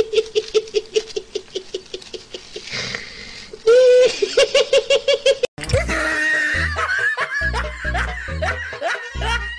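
A person's rapid, high-pitched staccato laugh, about five 'ha's a second, fading away. After an in-breath it breaks into a second loud burst of laughter. Just past halfway it cuts off suddenly and music with a heavy bass beat and a wavering vocal line takes over.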